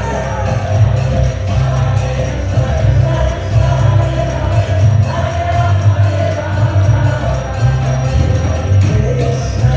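Kirtan music: a group chanting together over a steady pulsing beat, with jingling hand percussion keeping time.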